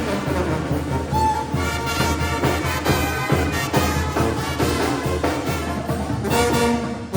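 Mexican banda brass band playing a song: trumpets and trombones over a steady tuba bass, with held chords near the end.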